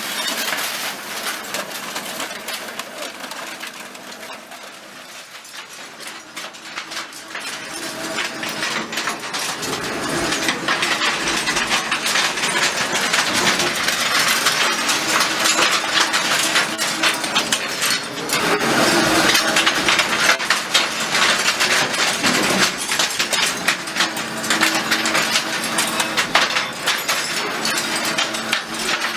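Metal pre-shredder tearing up scrap metal: a dense, continuous clatter and clinking of metal pieces over a steady machine hum. It is softer for the first several seconds and grows louder from about ten seconds in.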